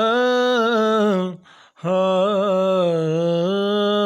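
Unaccompanied solo voice singing a devotional kalam in long held 'ho' notes with vibrato. About a second and a half in, the voice breaks off briefly for a quiet intake of breath, then takes up the next held note.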